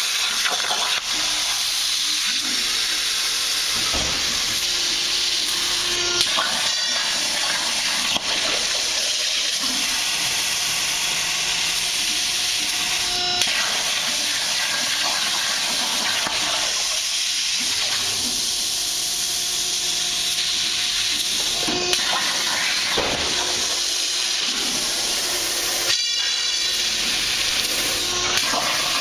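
CNC plasma cutter torch cutting through steel plate: a steady, loud hiss of the arc and cutting gas, with no pauses.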